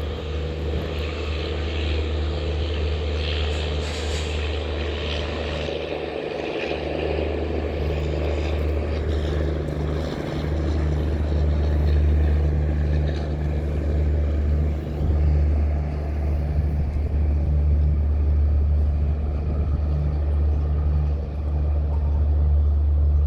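Low, steady drone of a WDP4D diesel locomotive's 16-cylinder EMD two-stroke engine, getting louder about halfway through.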